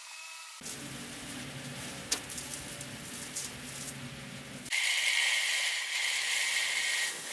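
Mechanical clicking and rattling over a low hum, then, from about five seconds in, a louder hiss with a steady high whine lasting a couple of seconds.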